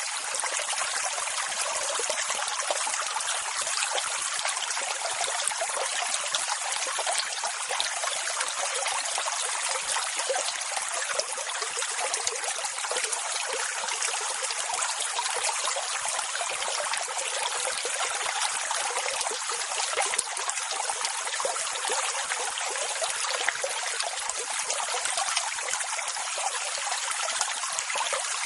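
Ocean surf as a steady, hissing wash of water, even in level with no separate wave surges, and little deep rumble.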